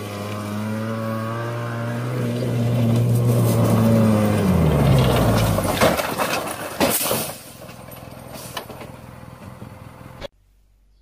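Side-by-side UTV engine running at steady revs, its pitch dropping about four and a half seconds in. Sharp crashing impacts follow at about six and seven seconds as the vehicle rolls over on gravel, then a lower rattling noise that cuts off suddenly near the end.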